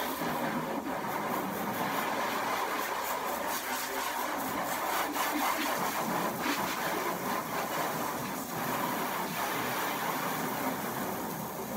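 Garden hose spray nozzle spraying a steady stream of water onto a car's hood and front panels, rinsing off wash-and-wax suds: an even, continuous hiss of spray and splashing water.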